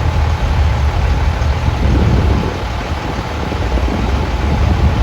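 Steady low rumble of idling truck engines.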